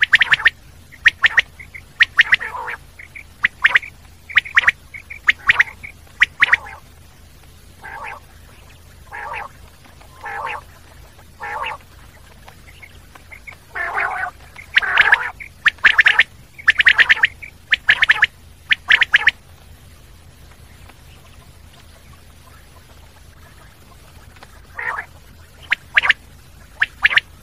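Common quail calling: short calls repeated singly and in quick runs of two or three, with a pause of about five seconds before the calling resumes near the end.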